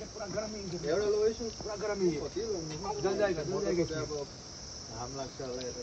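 Night insects chirring steadily, with soft voices that come and go over them.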